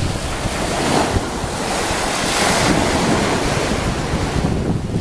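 Wind buffeting the camera microphone in a steady rush with low rumbling gusts, swelling a little in the middle.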